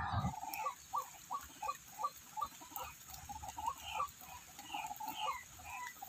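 White-breasted waterhen (ruak-ruak) calling: a rapid, even series of short clucking notes, about three to four a second, with fainter higher notes above them.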